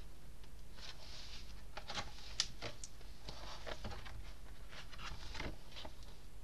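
Pages of a large hardcover picture book being turned by hand: soft paper rustles and light clicks and brushes, with one sharper click about two and a half seconds in.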